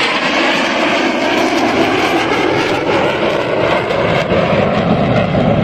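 Steady jet engine noise from a formation of Black Eagles T-50B jet trainers flying past, cutting off abruptly near the end.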